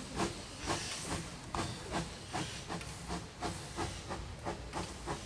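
1865 Neilson-built steam locomotive A10 No. 6 puffing as it pulls away, its exhaust chuffs quickening from about two to about three a second as it gathers speed.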